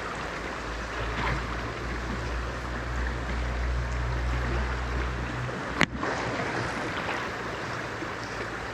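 Small backcountry stream running steadily over stones, a constant rush of water. A low rumble, like wind on the microphone, sits under it for the first five seconds or so, and a single sharp click comes about six seconds in.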